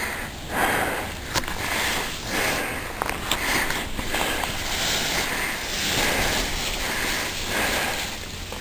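Skis hissing and scraping across snow in a run of turns, about one swish a second, with wind rumbling on the microphone.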